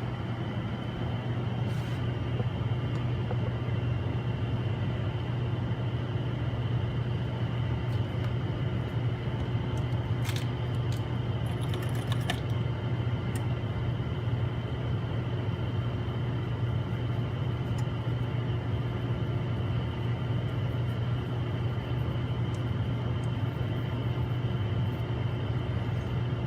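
Steady low machine hum, even throughout, with a few faint clicks around ten and twelve seconds in.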